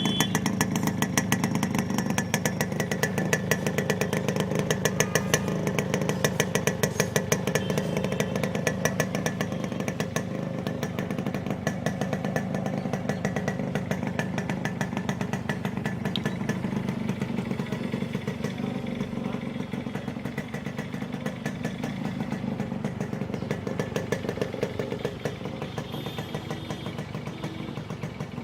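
Yamaha RX100's two-stroke single-cylinder engine running, its exhaust popping in a rapid, even beat. The sound grows gradually quieter through the second half.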